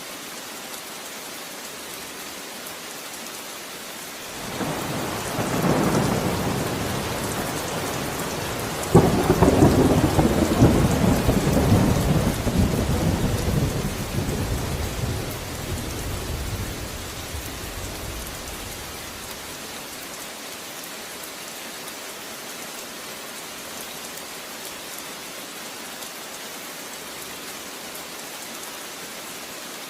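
Steady rain falling, with a peal of thunder. A rumble builds about four seconds in, a sharp crack comes about nine seconds in, and the thunder rolls away over the next ten seconds, leaving only the rain.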